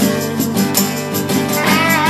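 Blues-rock band playing an instrumental passage with guitar and a steady drum beat. A held note with a wavering vibrato comes in near the end.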